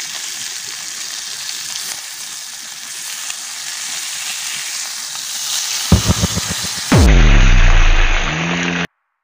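Chicken steak and green beans sizzling in a frying pan over a wood fire, a steady hiss with the faint tapping of chopsticks. About six seconds in, loud added music with deep tones takes over and cuts off suddenly near the end.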